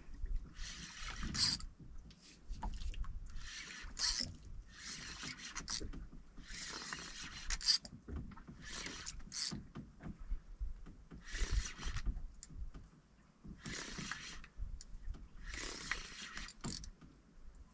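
Fishing reel being cranked in short bursts, a whirring run of a second or less every second or two, as a fish that has just struck is pumped and reeled up toward the boat.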